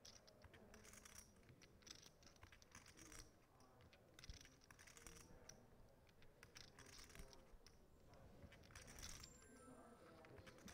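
Near silence: faint poker-table room tone with light, scattered clicks of poker chips being handled.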